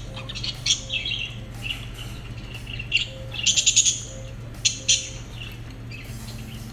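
Lovebirds chirping with short, sharp, high calls, including a quick rattling run of chirps about halfway through.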